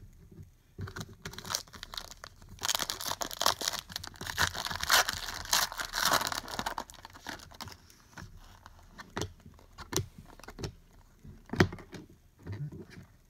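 Foil wrapper of a trading card pack being torn open and crinkled for a few seconds, followed by scattered light clicks and rustles as the cards are handled.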